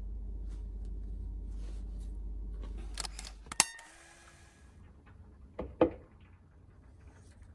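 A low hum, then a quick run of sharp clicks ending in a brief ringing tone. About two seconds later come two knocks as a mixing bowl is set down on a wooden cutting board.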